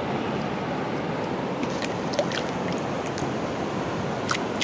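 Shallow river water rushing steadily over rocks, with a few faint clicks about two seconds in and again near the end.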